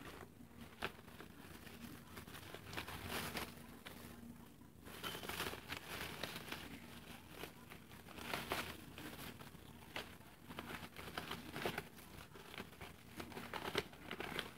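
Quiet, irregular crinkling and rustling as a broken VHS cassette and its loose, tangled magnetic tape are handled, over a faint steady hum.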